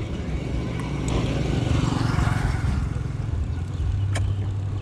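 Steady low rumble of wind and road noise while riding a bicycle, with a vehicle's hiss swelling and fading about two seconds in, and a single click near the end.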